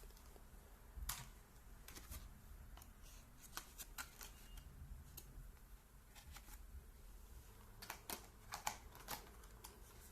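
Scattered light clicks and taps, as of small objects being handled, over a faint low hum; the sharpest come about a second in and in a cluster near the end.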